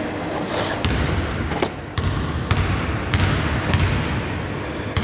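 A basketball bouncing repeatedly on a hardwood court floor as a player dribbles it, with sharp clicks between the thuds.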